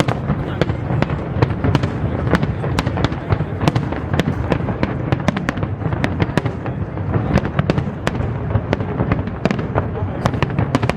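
Fireworks display going off continuously: dense crackling and rapid sharp bangs, many a second, over a steady low rumble of booming shells.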